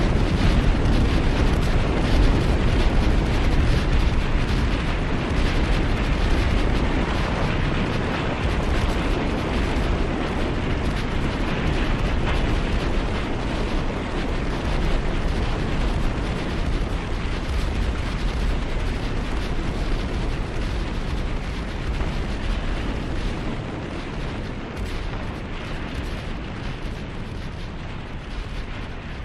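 Film sound effect of a dense, continuous rushing rumble, like a fiery blast, that slowly fades toward the end.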